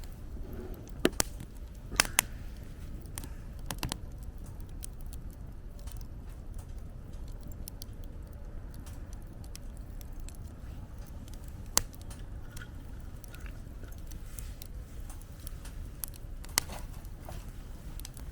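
Wood fire burning, with sharp crackles and pops scattered through it, a few of them loud, over a low steady rumble of wind.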